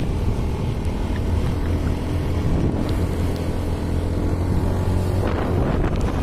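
Motorcycle engine running steadily at cruising speed, a constant low hum, with wind rushing over the microphone.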